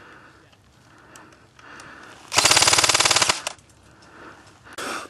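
Airsoft electric gun (AEG) firing one full-auto burst of about a second, a rapid even rattle of shots close by, about two and a half seconds in. A shorter, quieter burst of noise follows near the end, with faint scattered pops before it.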